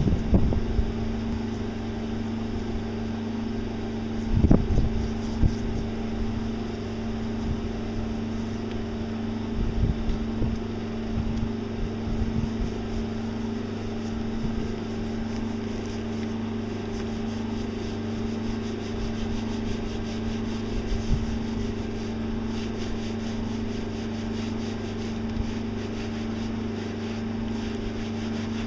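Steady hum of a pressure washer running while a wet alloy car wheel is scrubbed with a nylon-bristled wheel brush, bristles rubbing over the rim. Scattered knocks, the loudest about four seconds in and again around ten seconds, as the brush and wand bump the wheel.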